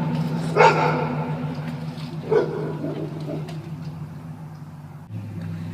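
A dog barking: two sharp barks about two seconds apart, with a few fainter ones after, over a steady low hum.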